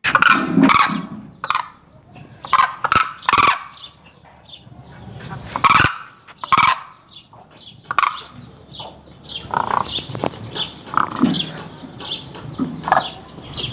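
A crane giving loud, harsh calls, repeated in quick succession with short gaps. The calls grow softer and more scattered after about nine seconds. The calls are those of an agitated crane guarding its chick.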